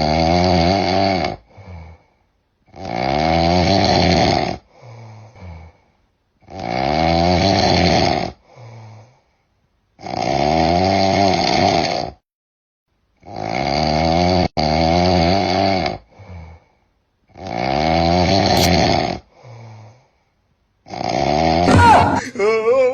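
A person snoring loudly in a steady rhythm: seven long, rasping snores about three and a half seconds apart, each followed by a short, quieter puff. Near the end a wavering, higher-pitched voice cuts in.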